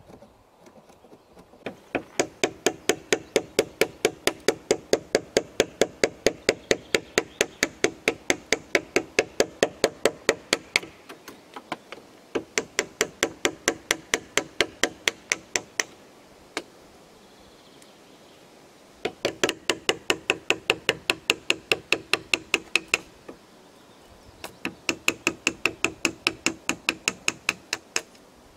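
A hammer striking a steel chisel to cut a joint notch into a log post: quick, even blows about four a second, each with a short ring, in four runs broken by brief pauses.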